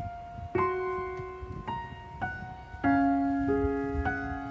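Background music: a slow, gentle solo piano melody, single notes struck one after another and left to ring.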